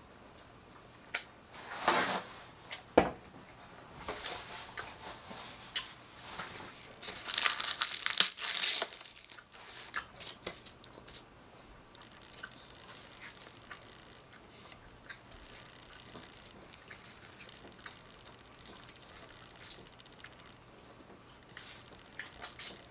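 Close-up chewing, biting and crunching of food, mixed with rustling of wrapper paper and small clicks. The loudest is a burst of crunching and rustling about seven to nine seconds in, and after that it is quieter, with scattered small sounds.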